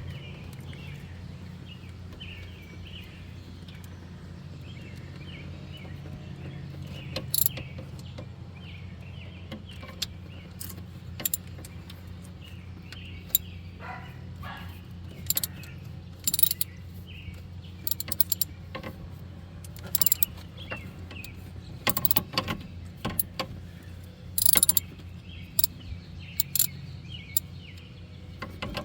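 Irregular metallic clicks and clinks from a small ratchet with a Phillips bit in a socket, working the lower screw that holds the ignition coil, over a steady low hum.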